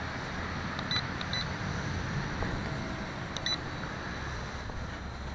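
Short, high electronic beeps from the quadcopter's radio transmitter, three quick ones about a second in and two more about three and a half seconds in, as the forward trim is pushed to offset the camera's back weight. Under them runs a steady outdoor noise.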